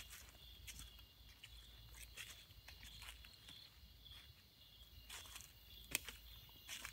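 Footsteps crunching through dry leaf litter at an irregular pace, with one sharper crunch about six seconds in. A steady high insect trill runs underneath.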